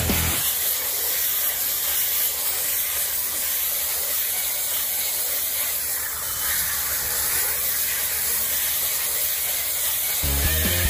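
Steady hiss of a tractor-drawn round bale wrapper at work, winding white stretch film round a grass bale for silage.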